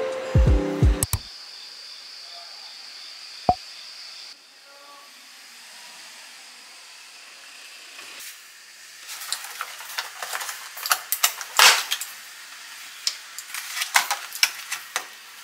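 Kitchen things being set out on a counter: a quick, uneven run of clicks and knocks as a wooden cutting board and plastic containers are put down and handled. Before it, light ukulele music stops about a second in, followed by a steady hiss and then a quiet stretch.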